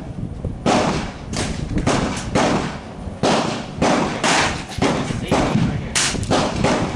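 A string of about a dozen gunshots, irregularly spaced and some barely half a second apart, each followed by a short echoing tail. The pace is too quick for a single bolt-action rifle, so more than one gun is firing.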